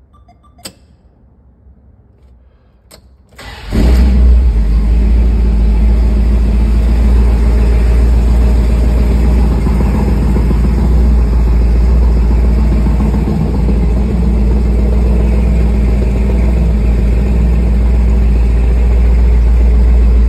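Plymouth Trail Duster's engine starting about three and a half seconds in, after two brief clicks, then running steadily and loudly with a deep low rumble.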